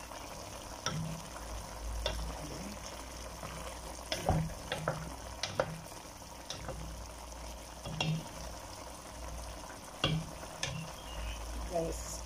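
Chicken caldereta in tomato sauce sizzling steadily in a metal pot while a wooden spoon stirs it. The spoon knocks and scrapes against the pot at irregular moments, about every second or two.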